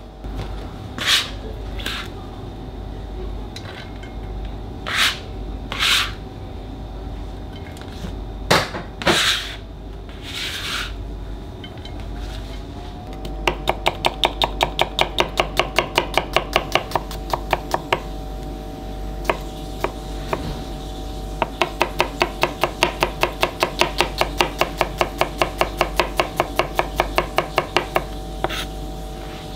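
Kitchen knife chopping on a cutting board: a few separate strokes at first, then two long runs of rapid, even strokes as a garlic clove is sliced and minced.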